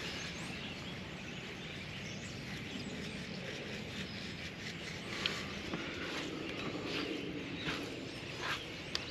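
Low outdoor ambience with occasional short bird chirps, and faint rustles as seasoning is sprinkled over raw meat cubes and they are turned by hand.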